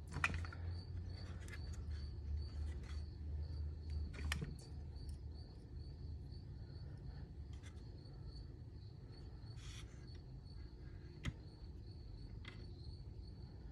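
Faint, scattered clicks and light handling noise as small number 2 screws are driven into a 3D-printed plastic latch catch, over a steady, evenly pulsed cricket chirping and a low hum.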